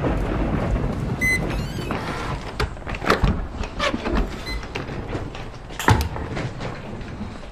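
A short electronic beep, then a room door opening and people coming in with luggage: a run of knocks, thuds and clicks, the loudest near the end.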